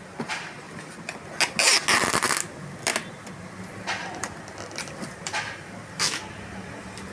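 Handling noises from packing a boxed pressure washer: irregular knocks, clicks and rustles, with a louder scraping rustle about two seconds in, over a faint steady hum.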